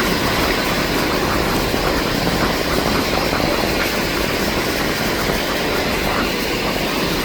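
Twin turboprop engines of a Canadair CL-415 water bomber in flight, a steady, loud drone without a break.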